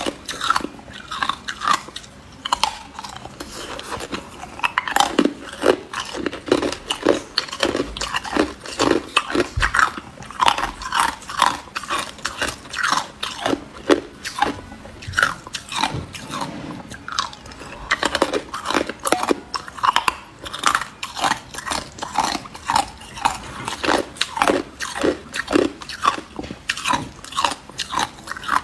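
Hard clear ice cubes being bitten and chewed, a continuous run of sharp cracking crunches several a second.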